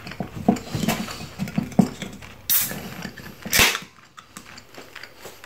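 Aluminium beer can being opened: a sudden crack and hiss of the pull tab about two and a half seconds in, then a second, louder hiss about a second later. Before it, chewing and mouth noises.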